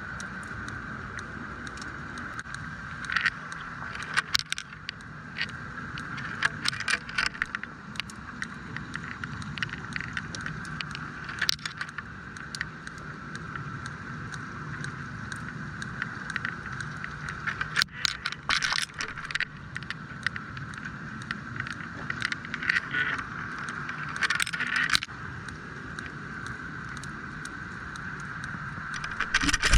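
Steady low hum and hiss from a working fishing boat, with scattered clusters of sharp clicks and scrapes.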